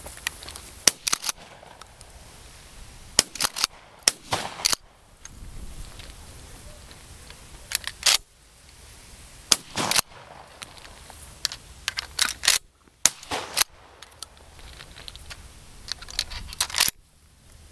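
Shotgun gunfire: a long run of about twenty shots fired in quick clusters of two or three, some loud and close, others fainter.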